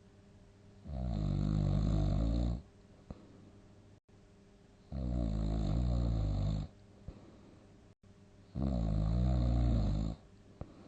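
A sleeping person snoring loudly: three long snores, each about a second and a half and about four seconds apart.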